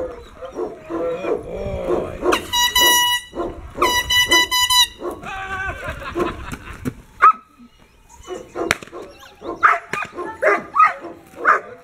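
German shepherd puppy barking and growling in quick bursts while lunging at a swung rag, with two air-horn blasts about a second each a couple of seconds in, and a couple of sharp snaps later on.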